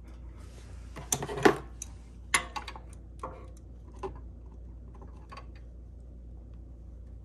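Pliers clicking and tapping against a metal spring hose clip as it is worked off a fuel line: a string of sharp clicks, the loudest about a second and a half in, then a few fainter ticks.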